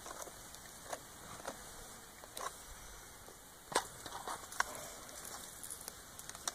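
Faint scattered clicks and scrapes of galvanized wire being wound by hand around a PVC irrigation pipe, with a few sharper ticks a little past the middle.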